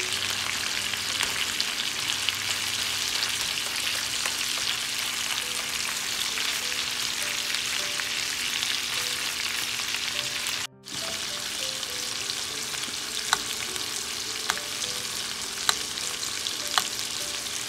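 Two boneless ribeye steaks sizzling steadily as they pan-fry in hot fat with garlic, with a few sharp clicks of metal tongs against the pan in the second half. The sizzle cuts out for a moment about eleven seconds in.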